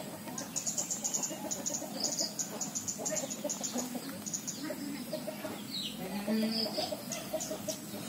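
Chickens clucking, with runs of quick, high-pitched chirping.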